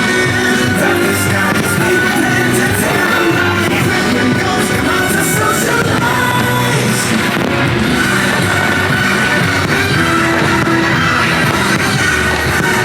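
Rock-style music with singing, loud and steady throughout.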